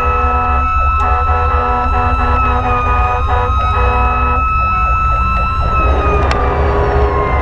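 Fire engine's siren sounding a high steady tone that slowly falls in pitch near the end, over the truck's engine drone in the cab.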